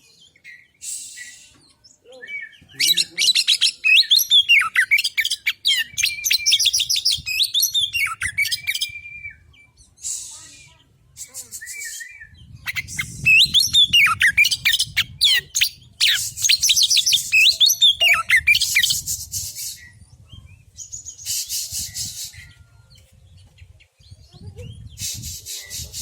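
Male oriental magpie-robin singing loud, varied phrases of rapid whistled and warbled notes in two long bouts, with short harsh, raspy bursts between them.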